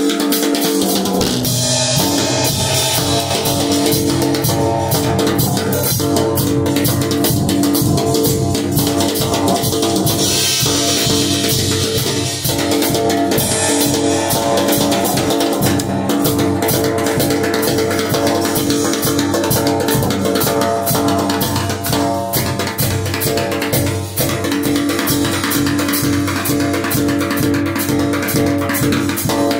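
Drum kit played with rods, a quick run of snare and cymbal strokes, over a rock song with electric guitar and bass guitar; the bass comes in about a second in.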